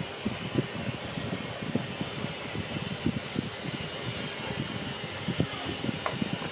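Wind buffeting the microphone: a low, irregular rumble with frequent soft thumps over a steady background hiss.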